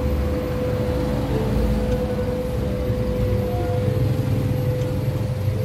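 Honda Brio's engine idling, heard from inside the cabin as a steady low hum with a constant mid-pitched tone over it.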